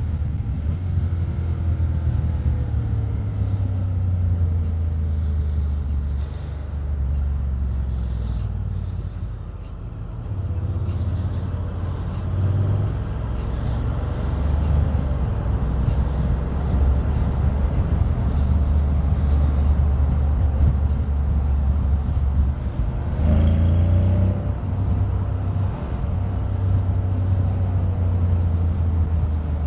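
Honda X-ADV 750 parallel-twin engine running under changing throttle through corners, its pitch rising and falling, easing off around ten seconds in and pulling harder with climbing revs about two-thirds of the way through. Wind and road noise underneath.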